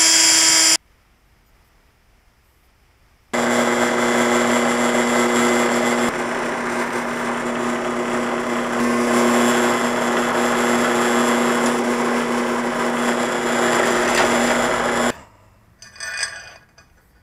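A cordless drill finishes a run and stops about a second in. After a short pause, a drill press runs steadily for about twelve seconds, its bit cutting through steel. A few light metal clinks follow near the end.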